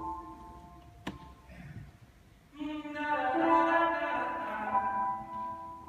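Live music of held, sustained notes, with a single sharp click just after a second in. The notes fade almost out around two seconds in, then a fuller chord of held notes comes in.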